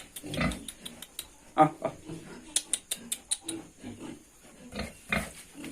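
Pigs grunting several times, short pitched grunts with sharp clicks and knocks between them.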